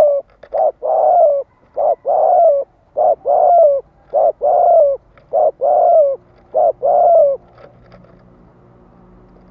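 A male spotted dove cooing rapidly in the 'thúc' style. Each call is a short note followed by a longer, slightly falling coo, and the call comes six times at about one-second intervals before it stops near the end.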